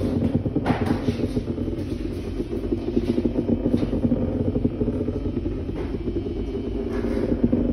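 Banana-shaped vibrator running on its own on a strong vibration setting, buzzing steadily and rattling against the surface it lies on as it creeps across it. It runs without cutting out, showing none of the power failure the buyer reported.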